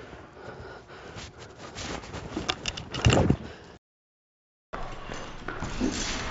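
Footsteps, scuffs and knocks as people move through a plywood-walled room, with a loud thud about three seconds in. The sound cuts out abruptly for about a second, then scuffling movement noise resumes.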